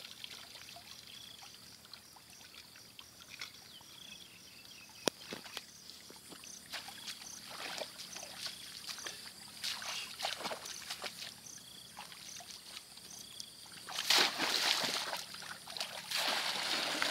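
Shallow floodwater sloshing and splashing in irregular bursts as feet wade through it and bamboo plunge baskets are pushed down into it, growing louder and busier near the end.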